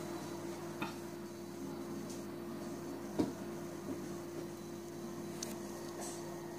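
Room tone: a steady, even hum with a few faint clicks, the loudest about three seconds in.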